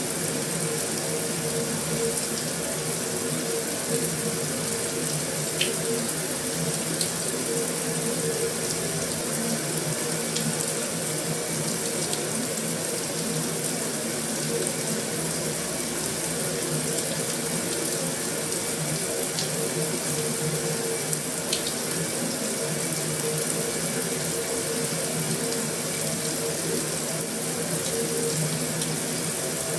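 Heavy rain falling steadily on a metal roof, an even wash of noise with a few sharper drop ticks now and then.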